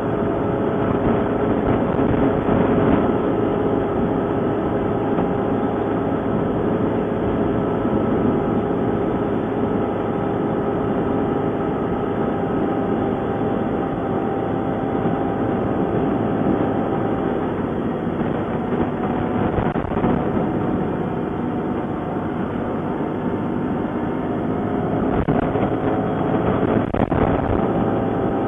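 ATV engine running steadily under way, with a dense steady hum of several tones and a few short knocks near the end.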